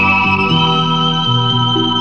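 Background instrumental music: a held keyboard melody note over a bass line that changes note about every half second.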